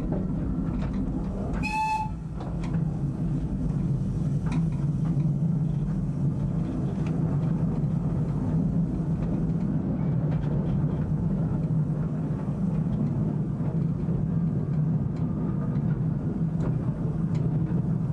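Small replica 0-4-0 tank steam locomotive and its train running on narrow-gauge track: a steady low rumble with scattered clicks. A short whistle blast sounds about two seconds in.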